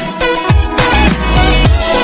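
Background electronic music with a heavy beat: a deep bass drum about twice a second under layered synth tones.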